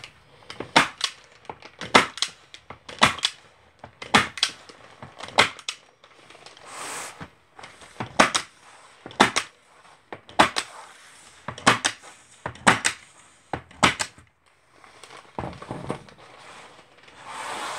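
Logan hand-held point driver firing flexible framer's points into the inside edge of a wooden picture frame to hold the backing in. Each shot is a sharp double snap, about one a second, some eleven shots with a short pause partway through.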